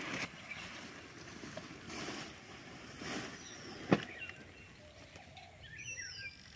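Dry firewood sticks being handled and shifted on a woodpile, with rustling and one sharp knock of wood on wood about four seconds in.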